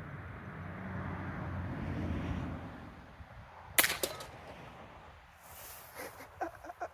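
Hatsan Jet .25 calibre PCP air pistol/carbine, detuned to under 500 fps, firing one shot a little past halfway: a sharp crack, then about a quarter second later a fainter strike as the pellet hits a can. A few light clicks near the end.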